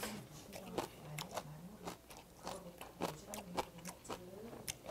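Close-up chewing of a mouthful of braised dried monkfish (agujjim): a run of short wet smacks and clicks from the mouth, with a faint low murmur under them.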